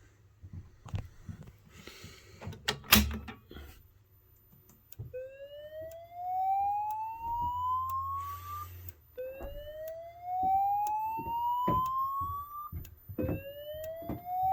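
Fire-Lite voice evacuation slow whoop tone from a fire alarm speaker: from about five seconds in, three rising whoops, each climbing for about four seconds, then cutting off and starting again. Before the whoops there are scattered clicks and one sharp click about three seconds in.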